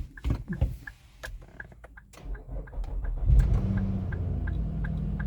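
2020 Infiniti QX60's 3.5-litre V6 starting about three seconds in and settling into a steady idle, showing that the newly programmed key is accepted. A light ticking repeats about two to three times a second throughout.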